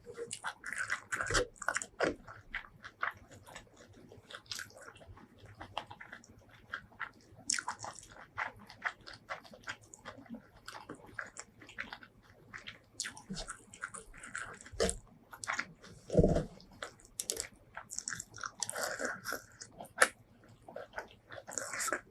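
Close-miked eating sounds: wet chewing and lip smacking with crisp little bites, irregular and continuous, from someone eating spicy shrimp curry with rice. One louder, lower sound comes about two-thirds of the way through.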